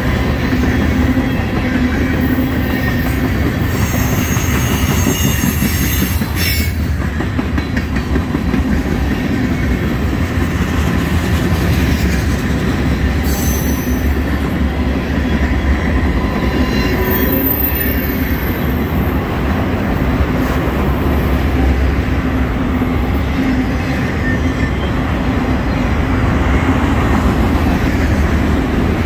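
Freight cars of a Norfolk Southern manifest train, tank cars and then autorack cars, rolling past close by: a steady rumble of steel wheels on rail. Thin, high-pitched wheel squeals come and go a few times.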